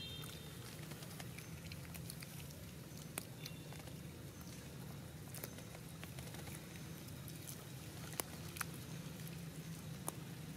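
Faint, scattered clicks and crackles of dry grass and leaves as long-tailed macaques pick at and chew grass, over a low steady hum.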